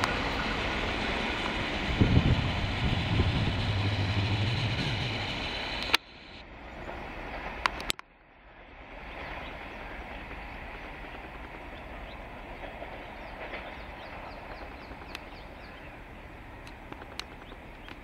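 Passenger express train's coaches running away down the line, wheels rattling steadily on the rails. It cuts off sharply about six seconds in, leaving only a faint steady rumble of the train far off.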